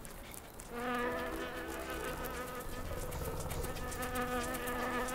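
Ammophila sand wasp buzzing its wings: a steady, even drone that starts about a second in and carries on, dipping briefly midway.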